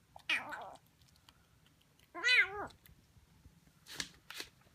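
Siamese kitten meowing twice: a short, rough cry just after the start and a clearer, longer meow that rises and falls about two seconds in. Two sharp clicks near the end.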